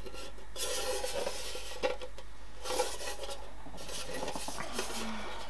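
Handling of a bread maker and its removable baking pan and parts: light rubbing and scraping, with two small knocks about two and three seconds in.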